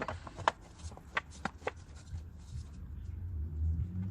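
A few short, sharp clicks and taps of engine parts and hand tools being handled as a part is fitted back onto the engine. A low hum builds near the end.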